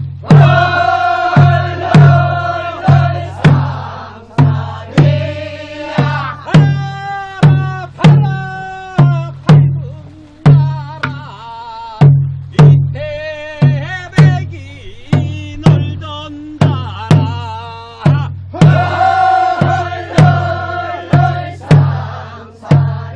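A Korean barrel drum (buk) struck in a steady beat, about one stroke a second with some strokes doubled, under voices singing a Korean farmers' paddy-weeding work song in long, sliding phrases.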